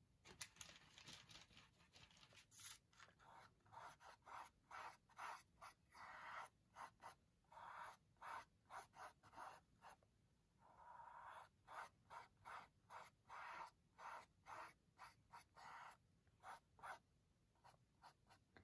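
Faint swishing of a paintbrush stroking paint onto a canvas, short strokes about two a second with one longer stroke partway through.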